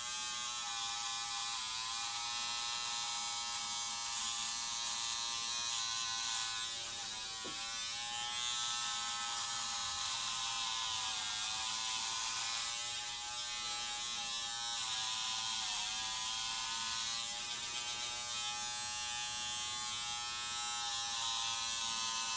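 Braun XT5 electric trimmer buzzing steadily as it cuts chest hair with its body-trimming attachment, its pitch sagging briefly several times as the blade works through the hair.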